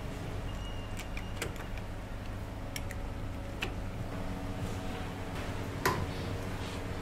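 Street-food kitchen work: scattered sharp clicks and clinks of metal racks and utensils over a steady low machine hum, the loudest click about six seconds in.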